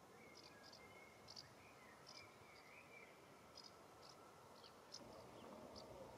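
Faint outdoor ambience: short high chirps, many in pairs, repeat about every half second, and a faint wavering whistle runs through the first half. The background hiss rises slightly about five seconds in.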